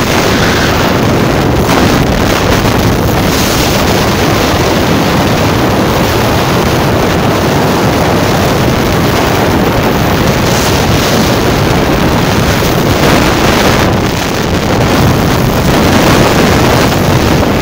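Loud, steady rush of wind buffeting the phone's microphone, with no other sound standing out.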